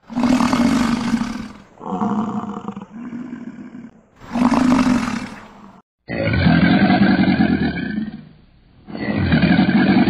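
American bison bellowing: three low calls, the middle one in two parts. Then, after a short cut, an alligator bellowing: two long, low calls.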